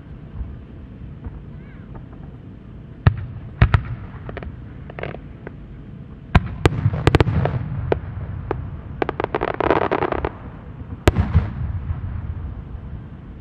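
Aerial fireworks bursting: a few sharp bangs from about three seconds in, a quick run of reports around six to seven seconds, a dense crackle near ten seconds, and one last loud bang about eleven seconds in.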